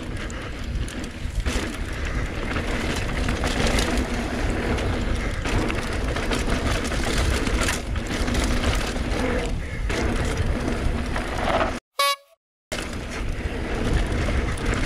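Mountain bike riding down a dirt trail: wind rushing over the action-camera mic, with tyre and bike rattle noise. The sound cuts out for under a second near the end.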